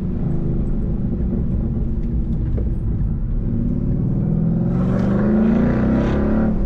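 2012 Ford Mustang Boss 302's 5.0-litre V8 exhaust, through Roush axle-back mufflers, while driving. The exhaust note climbs steadily in pitch from about four seconds in as the car accelerates.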